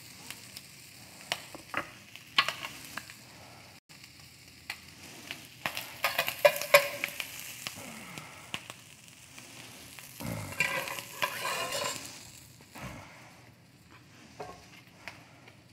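A spoon clinking and scraping as barbecue sauce is scooped from a glass bowl and smeared across a slate serving plate, over a steady sizzle of food frying. The scraping is loudest about six and ten seconds in.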